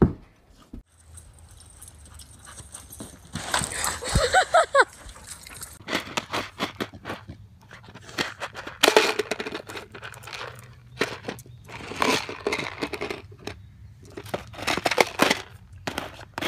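A plastic tub crackling and scraping against asphalt in repeated noisy bursts as a dog works its muzzle inside it. A few short wavering whine-like notes come about four seconds in.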